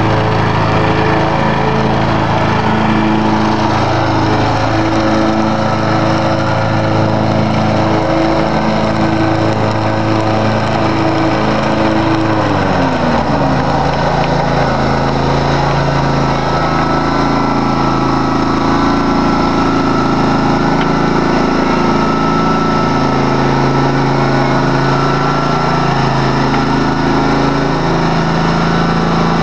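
Engine of a Bunton 36-inch hydrostatic walk-behind mower running steadily. About halfway through its pitch falls as the engine slows, and it then runs on evenly at the lower speed.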